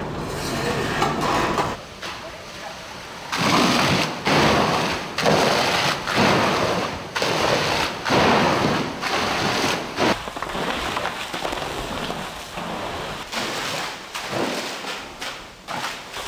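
Fire hose stream of about 30 PSI spraying onto a high-impact gypsum wall straight out of a two-hour furnace fire test, a loud rushing of water and spray as the stream breaks through the wall. It comes in repeated surges, loudest in the first half and steadier and lower after.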